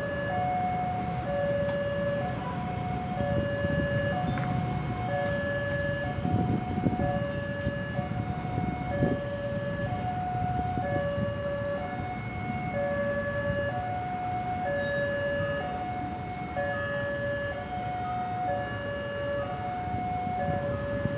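Railway level-crossing warning alarm sounding an electronic two-tone signal, a lower and a higher note alternating evenly, each held a little under a second, warning that a train is approaching. Road traffic rumbles underneath, swelling for a few seconds midway.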